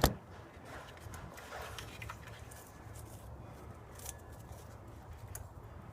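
A sharp plastic click, then scattered faint clicks and taps as a pickup truck's third brake light housing is handled and worked loose.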